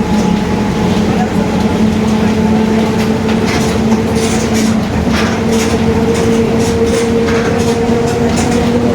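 Mercedes-Benz OF-1721 city bus under way, heard from inside: a steady droning hum from its rear differential over road noise, with short rattles from the body. The differential's drone is what the uploader calls growling.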